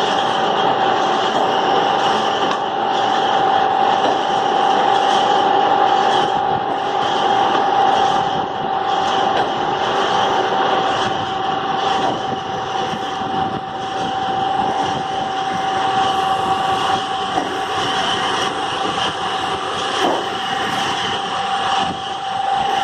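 Machine tool, most likely a lathe, machining a heavy eccentric crankshaft: a dense, steady machining noise with a constant whine held over it.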